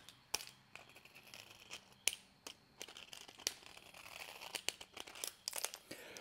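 A hand deburring tool scrapes the edges of a freshly machined connecting rod: faint, scratchy scrapes broken by light clicks and taps as the rod and tool are handled.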